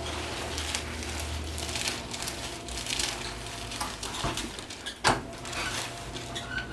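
Soft rustling, shuffling and small taps of handling and movement, with one sharp click about five seconds in.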